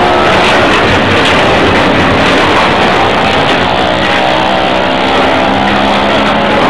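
Excavator engine running under load while it tears into a railway wagon, with a loud, continuous grinding screech of metal over the engine noise.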